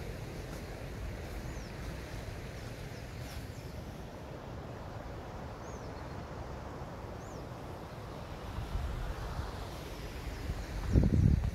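Wind rumbling on the microphone, with a few faint, short bird chirps. A stronger gust buffets the microphone near the end.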